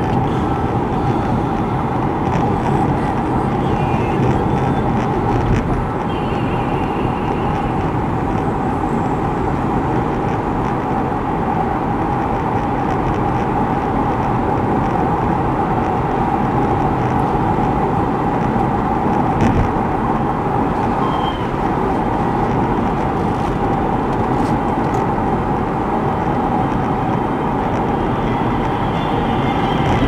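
Steady road and engine noise from a moving car, picked up inside the cabin by a dashcam.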